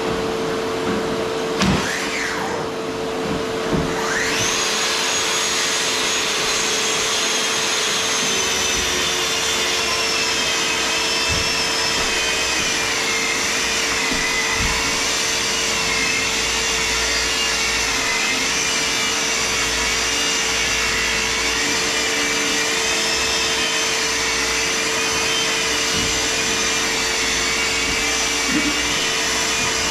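A steady hum runs throughout. About four seconds in, a Festool track saw starts with a high whine and cuts through plywood, its pitch wavering slightly as the blade works through the sheet.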